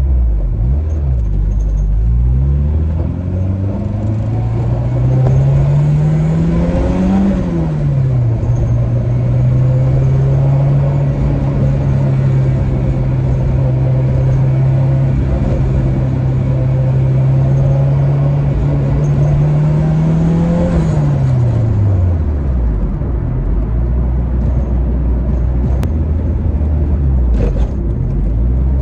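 Turbocharged Integra's LS VTEC four-cylinder engine in a mild pull: the pitch climbs for about seven seconds, drops at the upshift, holds steady while cruising, then winds down as the car slows near the end.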